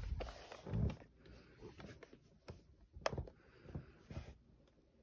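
Light handling sounds as a Brother P-touch label maker is picked up and held. There is a soft thump about a second in and a sharp click about three seconds in, with a few fainter knocks and rustles between.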